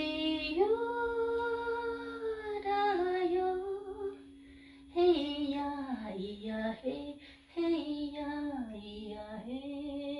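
A woman's voice singing long, held notes that slide up and down, without clear words, with a short pause about four seconds in, over the steady ringing drone of a singing bowl.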